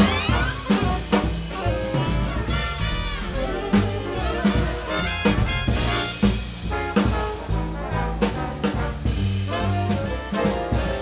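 Jazz big band playing a swing chart: trombone, trumpet and saxophone sections together over a rhythm section of drum kit, bass, piano and guitar.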